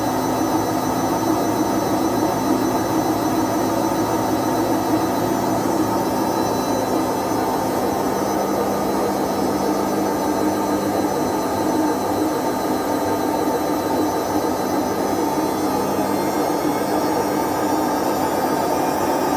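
Whirlpool/Vestel washing machine running with a loud, steady noise from its worn drum bearings. A low tone in the noise fades out near the end.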